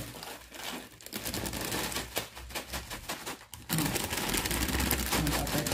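Plastic snack bag of batata palha (shoestring potato sticks) crinkling as it is handled and shaken over a hot dog, with rapid crackly clicks of the dry sticks being poured out. The crackling stops briefly about three and a half seconds in, then starts again.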